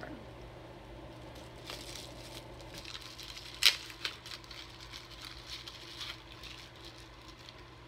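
Small cardboard box of a powder highlighter being handled: light rustling and scattered taps, with one sharp click about three and a half seconds in.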